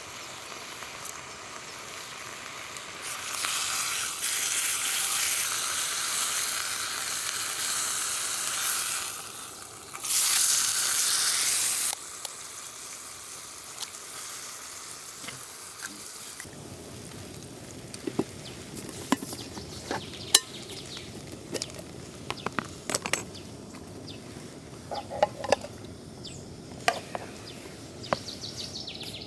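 Food sizzling in a frying pan, loudest in two stretches during the first twelve seconds, then quieter with scattered sharp clicks and taps.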